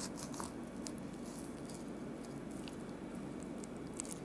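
Knife slicing meat away from a rabbit's rib cage: faint wet squishing with small scattered clicks as the blade runs along the rib bones, over a low steady hum.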